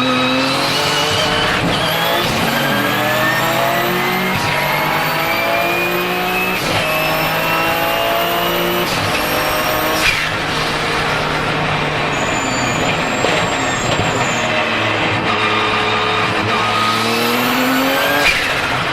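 Porsche 997 GT2 RSR's twin-turbo 3.9-litre flat-six accelerating hard through several upshifts. The engine note climbs in repeated sweeps, and a high turbo whistle rises with each one. About ten seconds in there is a single sharp crack, the engine note falls for a few seconds, then it rises again with the whistle near the end.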